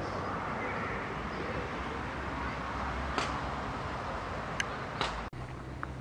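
Steady outdoor background noise, an even rushing sound, with a few short clicks about three and five seconds in. It cuts off abruptly about five seconds in to a slightly quieter background with a low hum.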